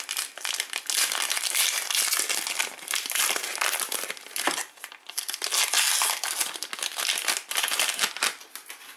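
Foil wrapper of a Panini Prizm trading card pack crinkling and crackling in uneven spurts as hands tear it open and pull it off the cards, dying away near the end.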